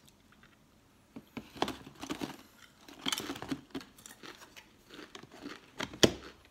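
A person chewing a crunchy Lay's Stax potato chip: irregular crackling crunches for several seconds. Near the end comes one sharp click as a plastic lid is pressed back onto the chip canister.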